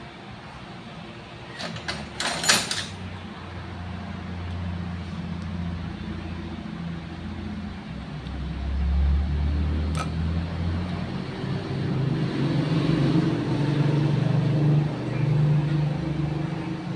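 A motor vehicle engine running, its low hum shifting in pitch and growing louder in the second half. A cluster of sharp clicks comes about two and a half seconds in, and a single click about ten seconds in.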